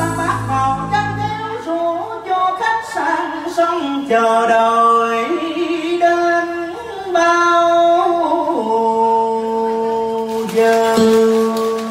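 Cải lương singing: a single voice carries a slow melody that moves in steps, then holds one long note from about two thirds of the way in.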